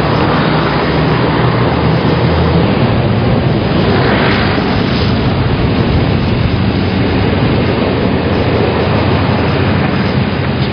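Steady street traffic noise. A bus engine runs low under it for the first couple of seconds.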